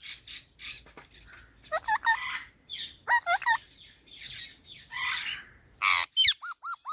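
Pet parrot squawking and chirping: harsh screechy calls mixed with short looping whistles, ending in a quick run of short repeated whistled notes.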